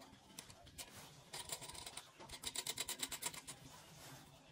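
Light metallic clicking and scraping from hand work on a toilet closet flange and its brass closet bolts. A quick run of about eight sharp clicks a second comes a little past the middle, with a few scattered clicks before it.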